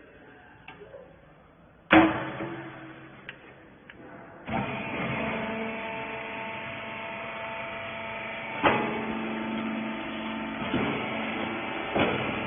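Hydraulic rag baler machine: a loud metal clang with a short ring about two seconds in, then the machine's motor and hydraulic pump start and run with a steady hum, broken by two more sharp metal knocks.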